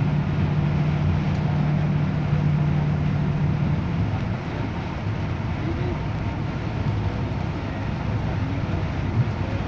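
Inside a Yutong coach driving on a wet motorway: steady engine drone and tyre noise from the wet road. The low engine hum eases off about four seconds in.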